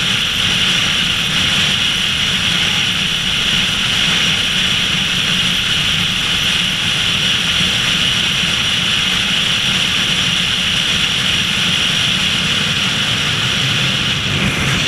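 Steady wind and road noise of a car cruising at highway speed: a constant low rumble under a strong, even hiss.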